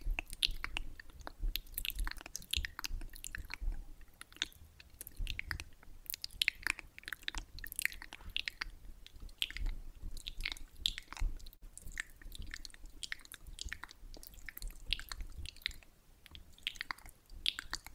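Fingertips massaging face cream into the face of a mannequin head, close-miked: many soft, irregular sticky clicks and wet squelches as the fingers press, rub and lift off the creamy surface.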